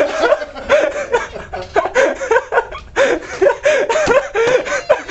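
Loud, hearty laughter in quick repeated bursts that go on without a break.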